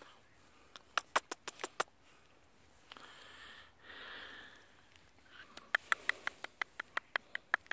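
Lhasa Apso puppies sniffing as they nose through grass, a soft snuffling hiss in the middle. Two runs of quick, sharp clicks come about a second in and again from about six seconds, several clicks a second.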